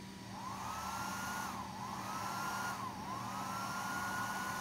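Small electric fan motor of an RC truck's smoke generator spinning up three times with the throttle, blowing out smoke. Each time, a whine rises, holds and drops away over a rush of air, and the last one is held longest.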